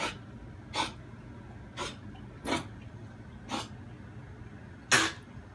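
A dog coughing in a fit of about six short hacks, the last one the loudest: a cough the vet believed to be kennel cough.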